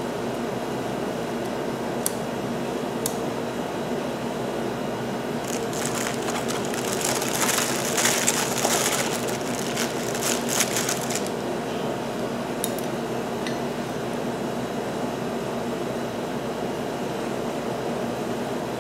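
Steady hum of a fan or air conditioner. A few light clicks, and a stretch of several seconds of crinkly, scratchy rustling in the middle, from parts being handled on the bench.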